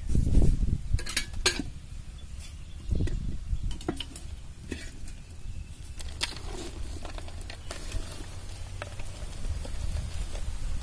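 Quartered ivy gourd pieces tossed and turned by hand in a large metal bowl: a soft rustle with scattered, irregular light clicks and clinks as pieces knock against each other and the bowl.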